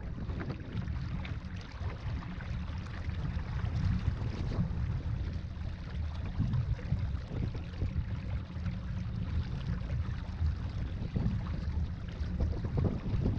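Wind buffeting the microphone in a steady low rumble, with water rushing and slapping against the hull of a small sailing dinghy going upwind.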